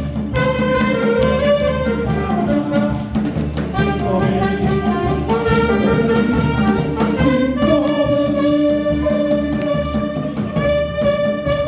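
Saxophone playing a melody over an accompaniment with a steady beat.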